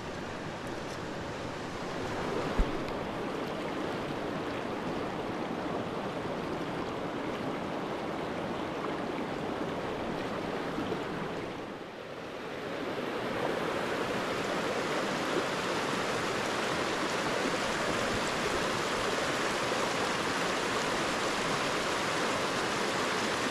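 Steady rush of a small rocky creek running over riffles and between boulders. It dips briefly about halfway through, then comes back fuller and brighter. One short knock sounds a few seconds in.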